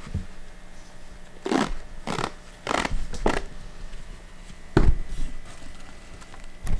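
Hand work on a paint-roller splint: four short rasping noises about half a second apart, then a louder thump.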